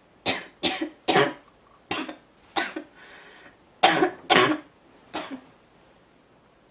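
A sick woman coughing in two fits, about eight coughs in five seconds, with a breath drawn between the fits.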